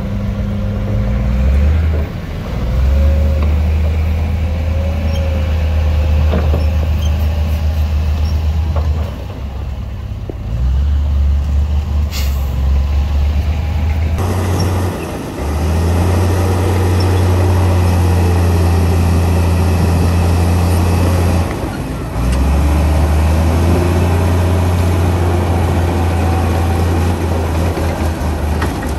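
Heavy diesel engines of earthmoving machinery running under load: a deep steady drone that holds for several seconds at a time, easing briefly in between. A short sharp hiss comes about twelve seconds in.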